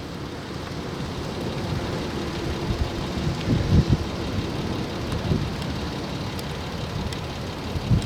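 Storm wind blowing across the microphone, with uneven low rumbling gusts.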